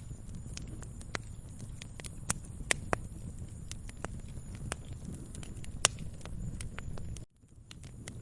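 Wood fire crackling: irregular sharp pops and snaps, a few louder than the rest, over a low steady rumble. The sound cuts out suddenly about seven seconds in and fades back within a second.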